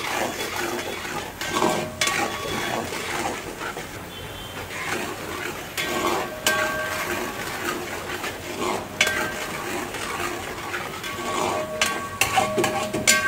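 Long steel spatula scraping and clanking against a large steel kadhai as chopped and ground onions are stirred and fried in oil, with a sizzle underneath. The pan rings after each knock, with sharper clanks now and then and several close together near the end.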